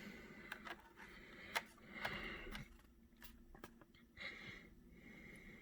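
Faint handling noise of packaged diecast toy cars: a few soft, sharp clicks and light rustles, the loudest click about a second and a half in.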